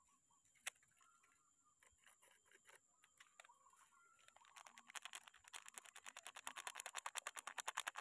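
Foil sachet of herbicide powder handled and then shaken and tapped as the powder pours out into a bucket of water: a few faint crinkles at first, then about halfway through a quick, even run of crinkly ticks, about ten a second, that grows louder to the end.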